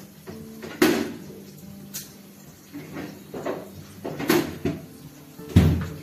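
Kitchen clatter: about five separate knocks and clanks of utensils and cupboard doors, the heaviest thump near the end.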